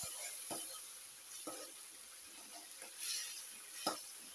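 Chopped tomatoes, onions and green chillies sizzling in oil in a wok-style pan, stirred with a metal spoon that scrapes the pan a few times. There is a sharp knock of the spoon just before the end.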